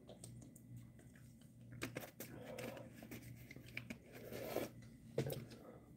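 Faint scattered clicks, rustles and light scrapes of small objects being handled, over a low steady hum.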